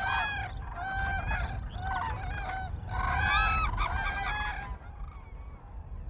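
Several common cranes calling: repeated clear, ringing calls overlapping one another, loudest a little past halfway and dying away about three-quarters of the way through. A low steady rumble of background noise sits underneath.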